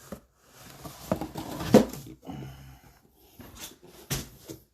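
Trading card boxes being handled and opened, with irregular cardboard knocks and rustles of packaging; the loudest knock comes about two seconds in.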